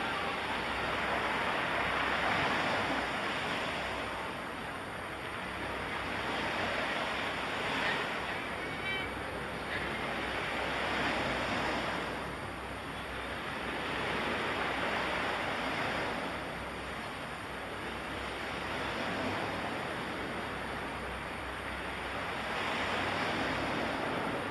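Surf: waves washing in, a steady rush that swells and ebbs every four to five seconds.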